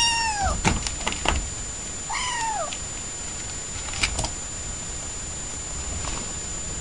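Orange tabby kitten meowing twice, each a short high meow falling in pitch, the first at the start and the second about two seconds in. A few sharp clicks come between the meows and again about four seconds in.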